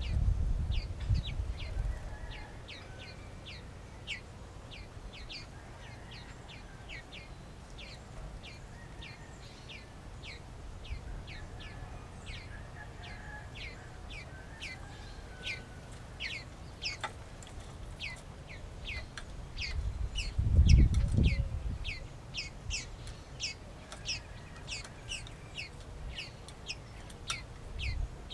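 Small birds chirping: a quick run of short, high, downward chirps, about two or three a second and getting busier near the end, over faint clucking of backyard chickens. Two low rumbles stand out, one at the very start and a louder one about 21 seconds in.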